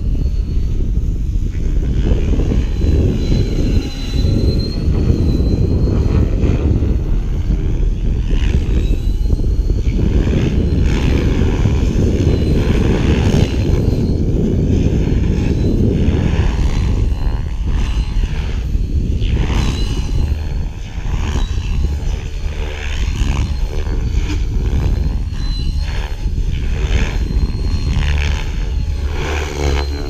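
Align T-Rex 550E electric RC helicopter flying: a rotor and motor whine that rises and falls in pitch as it passes and turns, over a constant low rumble that eases off about halfway through.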